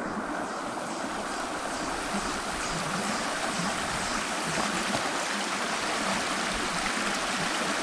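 Steady rush of flowing water from a stream or waterfall, an even wash of noise with no distinct events.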